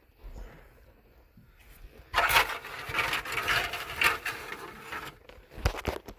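Objects being handled and moved about: about two seconds in a burst of scraping and rustling with small clicks starts and runs for about three seconds, then a single sharp knock near the end.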